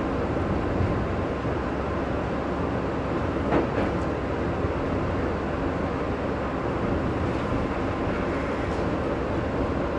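Running noise heard inside a moving NO.DO.KA diesel railcar: a steady rumble of wheels on rail and the diesel engine, with one sharp knock about three and a half seconds in.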